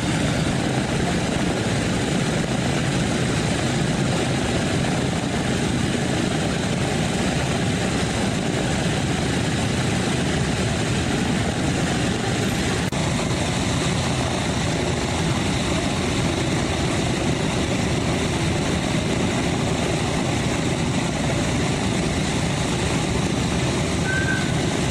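Four Wright R-1820 Cyclone nine-cylinder radial engines of a Boeing B-17G Flying Fortress running together at idle, a steady, unbroken propeller-and-engine rumble.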